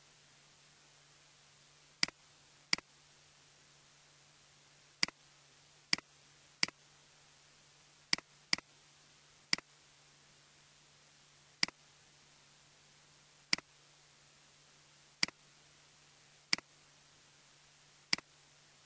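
Computer mouse clicking: about thirteen single sharp clicks at irregular intervals, a few in quick pairs, over a faint steady hum and hiss.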